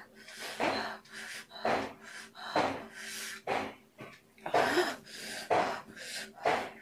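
A woman breathing hard in short, noisy breaths about once a second, reacting to the burning heat of an extremely hot chili chip.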